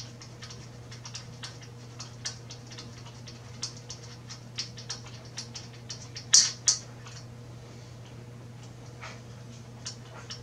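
Irregular light clicks and taps of metal parts being handled as an iOptron GEM45 equatorial mount is fitted onto its tripod head, with two louder clanks about six and a half seconds in. A steady low hum runs underneath.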